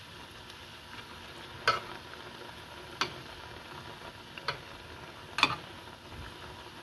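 Banana vadas deep-frying in hot oil in a stainless steel pan, a steady sizzle, with a metal spoon clinking sharply against the pan a few times as the vadas are turned over.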